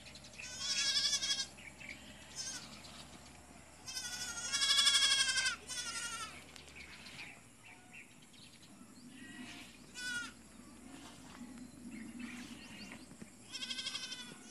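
Animal bleating: several quavering calls. The longest and loudest comes about four seconds in, a short one about ten seconds in, and another starts near the end.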